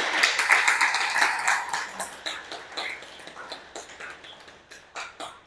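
Small audience clapping, thinning out and dying away over about five seconds.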